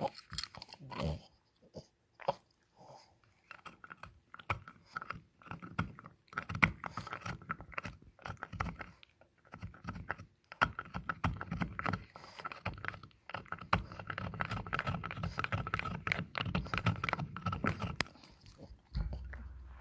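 French bulldog chewing on a hard antler: irregular crunching, gnawing and clicking of teeth against the antler, busier in the second half.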